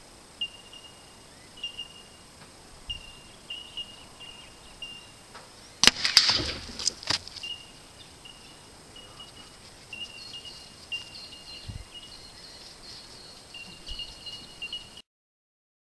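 A single shot from a low-velocity .22 rimfire rifle about six seconds in, a sharp crack followed by a few quieter clicks and knocks over the next second. Birds chirp repeatedly in the background.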